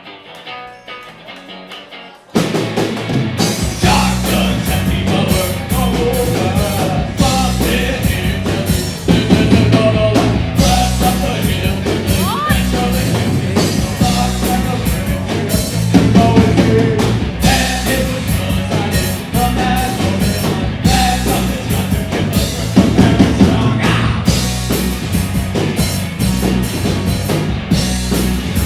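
Live rock band: a quiet guitar intro, then about two seconds in the full band comes in loud with drum kit, bass and guitar playing a driving rock song.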